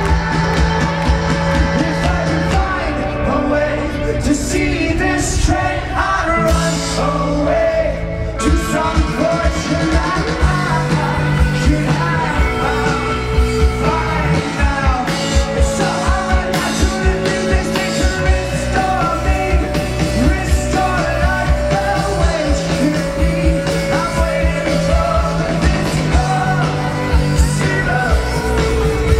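Indie rock band playing live, loud and full-band, with drums, bass, guitars and singing.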